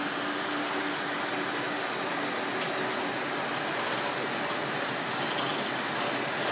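A VR electric locomotive passing at steady speed, hauling covered freight wagons. A steady hum from the locomotive fades about two seconds in, leaving the even rolling noise of the wagons' wheels on the rails.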